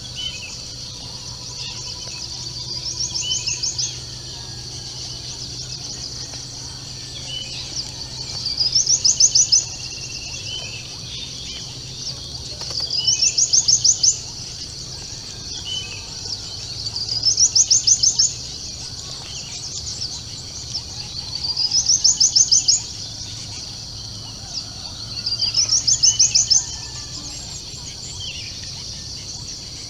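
Dawn bird song: a loud, quickly pulsed trill that rises in pitch and grows louder before stopping abruptly, repeated six times about every four seconds. Underneath is a steady high-pitched insect drone.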